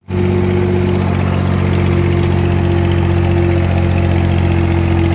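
Valmet 65 ID tractor's diesel engine running steadily, pulling a three-disc plough through the soil.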